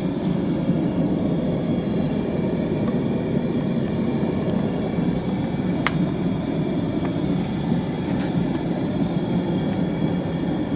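Steady low roar of a gas burner under a large boiling hot-pot tray, with one sharp click about six seconds in.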